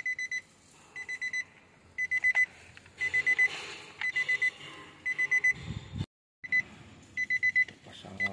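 A vehicle's electronic warning chime beeping in short bursts of about four quick high beeps, repeating about once a second, with faint rustle from parts being handled. The sound cuts out completely for a moment about six seconds in.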